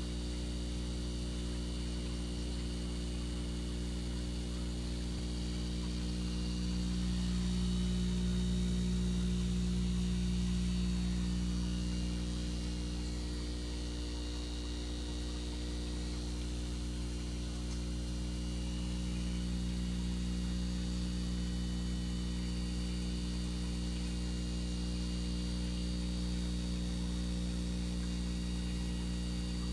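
Steady low electrical hum with a stack of even overtones that holds throughout, swelling slightly in loudness now and then.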